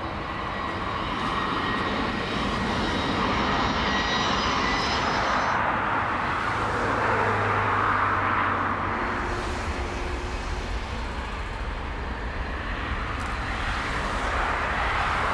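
Jet engines of a twin-engine widebody airliner running as it rolls along the runway. A faint high whine is heard over the engine noise for the first few seconds. A broad rushing sound swells around the middle, eases off, and rises again near the end.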